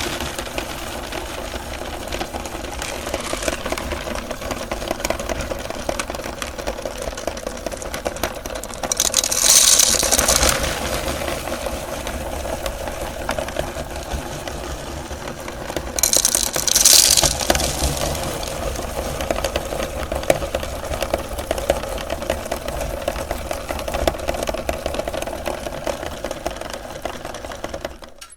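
Electric meat grinder running steadily while grinding M&M candies, with two louder spells of crunching about nine and sixteen seconds in. The motor cuts off suddenly near the end.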